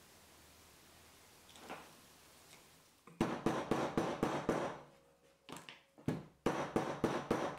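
White-faced mallet tapping the folded end of a leather leash against a stone block, flattening the fold: quick strikes about five a second that begin about three seconds in, pause briefly near the middle, then resume.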